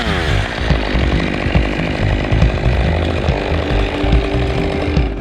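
Two-stroke chainsaw: its engine pitch falls from full throttle right at the start, then it runs rough and uneven. A steady tone joins about three seconds in.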